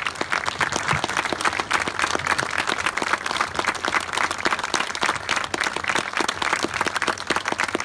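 Crowd applauding: many hands clapping at once, steady and dense.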